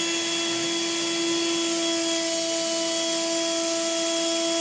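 2003 Electrolux lightweight bagless upright vacuum cleaner's motor running at full speed: a steady whine over the rush of air. The owner judges it doesn't sound healthy, its single fan loaded up with dust, dirt and hair.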